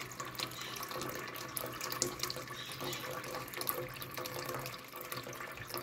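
Tap water running in a steady stream into a large aluminium pot already partly full, splashing and bubbling on the water's surface.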